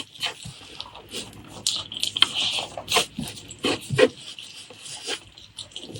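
Close-miked chewing and mouth sounds of someone eating a pork leg curry meal with rice, an irregular run of short clicks and smacks.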